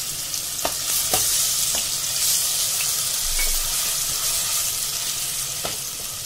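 Green chilli and fennel paste sizzling as it fries in hot ghee in a stainless steel kadai, with a steady hiss. A steel ladle stirs it and clicks against the pan a few times.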